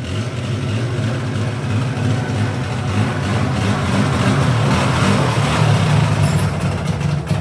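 Polaris Sportsman 400 ATV's liquid-cooled two-stroke engine running steadily, swelling slightly in the middle.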